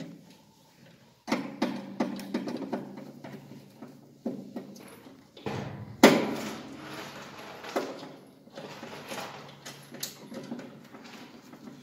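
Irregular clicks and knocks of hands fitting wires and crimp terminals onto the terminal bar of a metal electrical panel, with one louder knock about six seconds in. A faint steady hum runs underneath.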